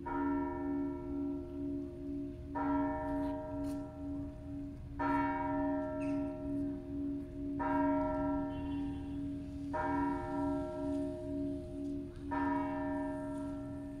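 Russian Orthodox church bells ringing: a bell struck at an even pace, about every two and a half seconds, each stroke ringing on. Under the strokes runs the continuous hum of a deeper bell, wavering slowly in loudness.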